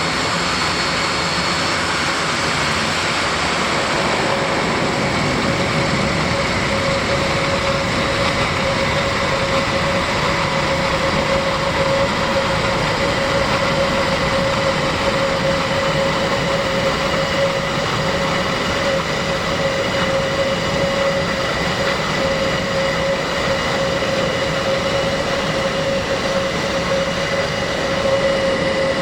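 Airbus A400M's four TP400-D6 turboprop engines running steadily at low power: a constant rush with a steady whine.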